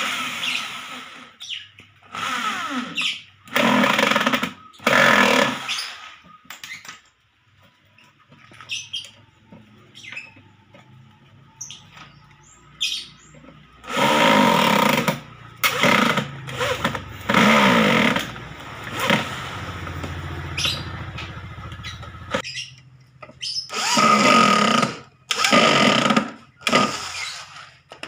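Electric hand drill boring into thin wooden strips, switched on and off in about ten short bursts of a second or so each, its motor whine steady during each run.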